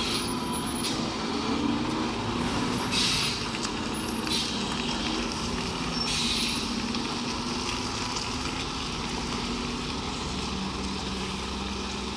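A 12-wheel heavy truck's diesel engine runs with its pitch shifting up and down as it works through a sharp turn. Several short air-brake hisses sound over the engine in the first half.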